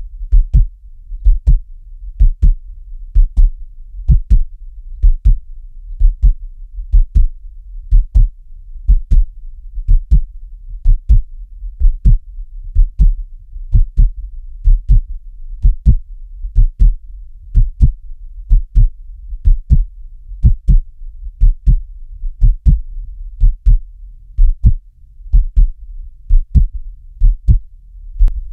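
Heart beating steadily at about one beat a second, each beat a low double thump (lub-dub), over a low steady hum.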